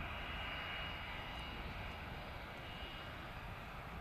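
Airbus A330-243's Rolls-Royce Trent 700 turbofans running at taxi power: a steady jet rush with a steady high-pitched whine over it.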